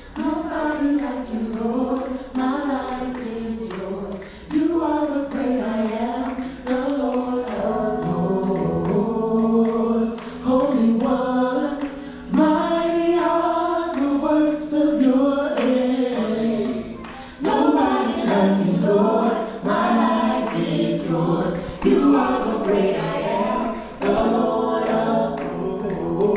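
A vocal group singing in close harmony, in phrases a few seconds long with short breaks between them.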